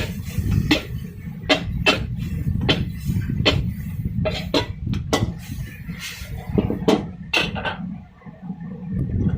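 A metal spatula knocking and scraping against a wok while stir-frying, with irregular sharp clangs one or two times a second, over a steady low rumble.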